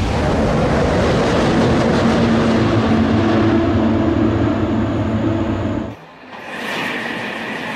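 A high-speed maglev train, the L0 series SCMaglev, passing with a loud rushing noise. It cuts off suddenly about six seconds in, and a second pass starts to build near the end.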